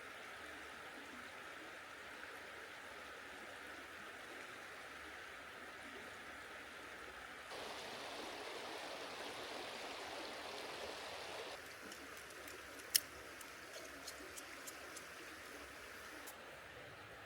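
Mountain stream flowing steadily, louder and fuller for about four seconds in the middle. One sharp click comes near the end, followed by a few light ticks.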